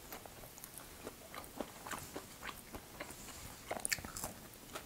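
Quiet chewing of French fries, with faint scattered small clicks and a short cluster of sharper clicks near the end.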